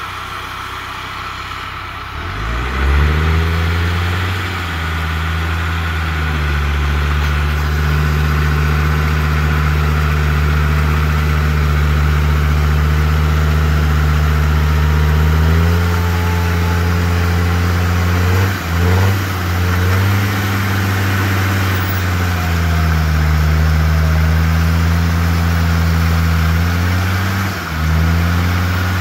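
Land Rover Discovery Td5's five-cylinder turbo-diesel revs up sharply about two seconds in and is then held at high revs. The revs sag and pick up again a few times, the sound of hard driving through mud.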